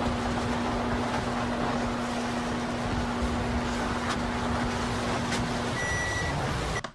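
Microwave oven running with a steady humming drone, which stops near the end and is followed by one short high beep; the sound then cuts off.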